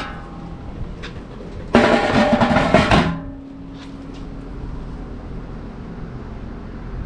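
A loud sheet-metal clatter and scrape of about a second, from the pizza oven's ash catcher tray being handled. A low ringing tone dies away just after it.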